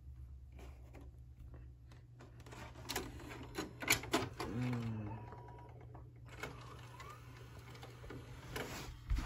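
A VHS cassette going into a Samsung DVD-VCR combo: a run of plastic clicks and clunks about three to four seconds in as the tape is pushed into the slot, then a short falling whir of the loading mechanism. A few more clicks come near the end.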